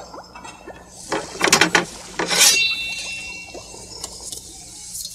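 A steel knife blade being sharpened: several rasping scrapes, then one long drawn stroke that ends in a ringing metallic shing lasting about a second.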